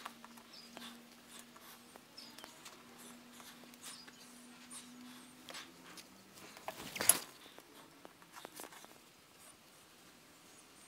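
Faint handling clicks and rustles of a leather shoe quarter and small eyelet parts being fitted under a hand-operated eyelet press, then one sharp clack about seven seconds in as the press comes down to set a 4 mm eyelet with its washer. A faint steady hum runs through the first half.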